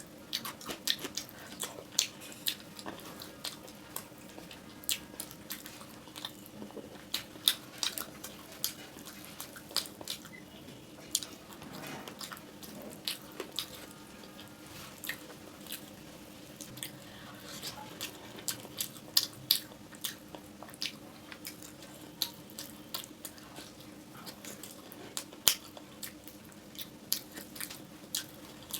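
Close-miked eating: chewing and mouth sounds made up of dense, irregular sharp clicks and smacks, over a faint steady hum.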